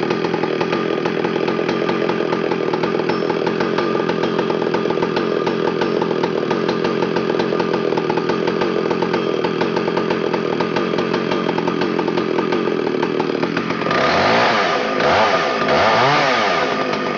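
Vintage McCulloch Super Pro 125 two-stroke 125cc chainsaw engine running steadily, then revved up and down about three times near the end.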